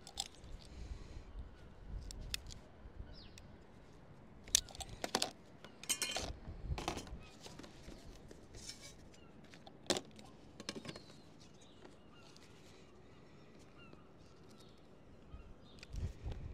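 Scattered light taps, clinks and rustles of hand work on sheet-lead capping, bunched in a few short flurries, over a faint low rumble.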